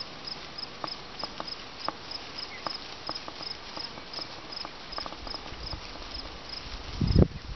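Crickets chirping steadily, about three to four high chirps a second, with scattered short soft calls from a flock of wild turkeys close by. A brief loud low rumble comes near the end.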